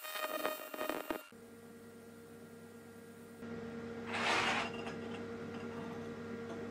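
AC TIG welding arc buzzing on the aluminium header tank for about the first second, then cutting out. A steady hum is left, and about four seconds in comes a short scrape as the aluminium tank is moved on the steel welding table.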